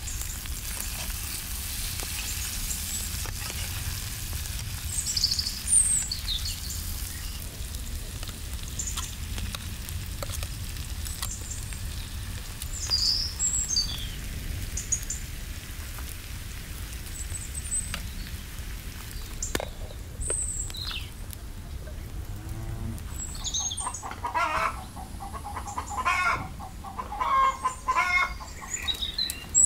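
Small birds chirping on and off over a steady low rumble, with a chicken clucking in several short calls in the last few seconds. Underneath is a faint sizzle of pumpkin frying in the pan as it is stirred.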